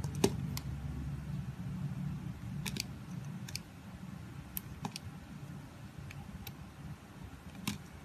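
Utility knife blade carving a bar of soap: scattered crisp cracks as slivers snap off the bar, about nine in all, the sharpest just after the start and another near the end, over a low steady rumble.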